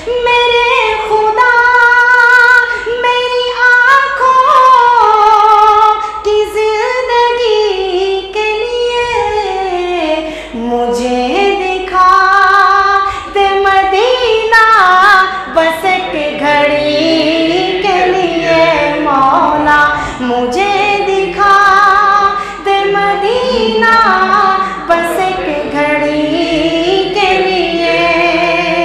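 A voice singing an Urdu naat in long, drawn-out phrases whose pitch winds up and down, with a short pause for breath every few seconds.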